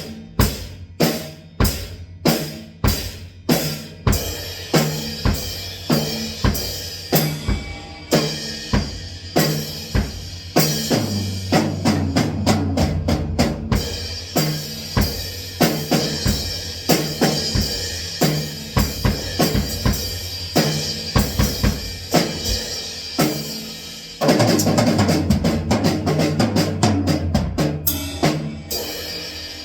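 Drum kit being played: even single strokes about two a second at first, then busier beats on bass drum and snare, getting louder with heavier cymbal crashing for the last few seconds.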